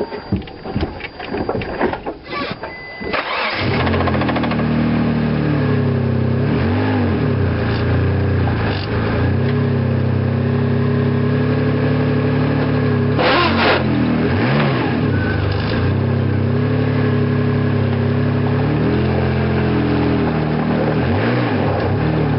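Mitsubishi 3000GT VR4's twin-turbo V6 cranked and catching about three seconds in, then running steadily, its pitch shifting briefly a few times. It is the engine the owner suspects of a spun-bearing knock that shows at start-up.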